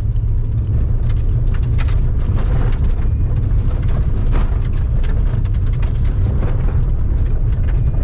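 Cabin noise of a first-generation Toyota Vios sedan driving on a rough gravel road: a deep, steady road rumble, with frequent irregular ticks and knocks from stones under the tyres and against the underbody.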